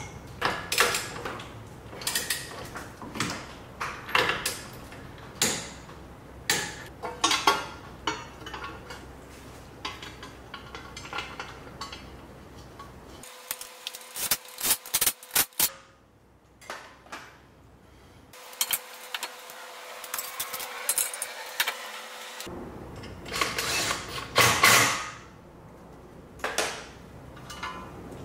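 Irregular metallic clinks, clicks and knocks of hand tools and steel parts being handled at a car's front wheel hub, with a louder clatter of metal near the end.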